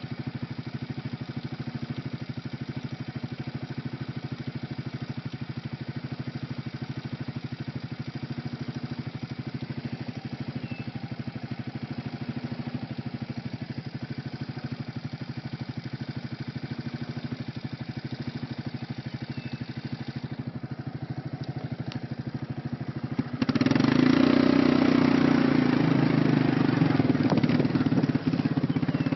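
Quad bike engine running steadily at low speed with an even pulse, then markedly louder and rougher from about three-quarters of the way through.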